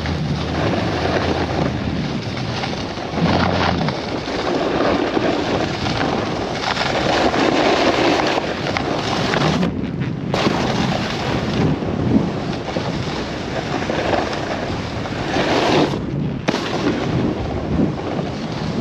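Snowboard sliding and scraping over packed snow, with wind rushing across a helmet-mounted GoPro's microphone. The scraping noise drops out briefly twice, about ten seconds in and near the sixteen-second mark.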